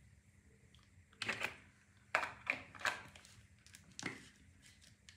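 Short knocks and clicks of small objects being handled and set down, five in all over about three seconds.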